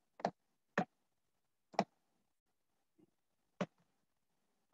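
Computer mouse clicking: about five short, sharp clicks at uneven intervals while words are handwritten on screen with the mouse.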